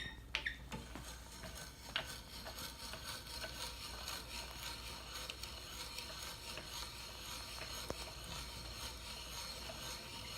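Hand brace turning a wood auger bit as it bores into pallet wood: a steady scraping of the bit cutting, with a few clicks and knocks near the start.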